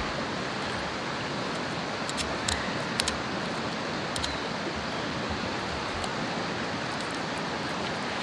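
Steady rush of water along the shore, with a few light clicks and knocks as a hand auger is handled and its bit is set against a pine log round.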